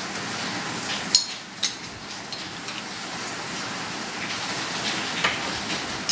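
Steady hiss of rain falling, with two sharp clicks about a second in, half a second apart, and a few fainter clicks later.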